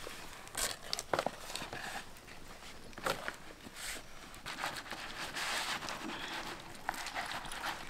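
A large banana leaf rustling as it is handled and spread flat on a wooden table, with a few sharp crinkles, then water poured from a jug splashing onto the leaf in the second half.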